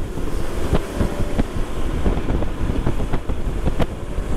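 Riding noise from a Honda PCX scooter at about 50 km/h on a rain-wet road: a steady wind rumble on the helmet microphone with tyre noise on the wet surface, dotted with scattered sharp ticks.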